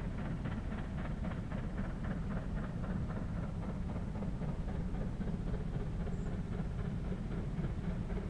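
Steam locomotive working hard as it approaches, its exhaust beating in a rapid, even rhythm over a steady low rumble.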